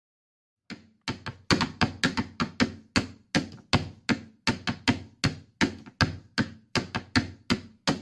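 A steady beat of hollow percussion strikes, about three a second, each with a short low ring that fades. It starts a little under a second in, as the opening beat of the soundtrack music.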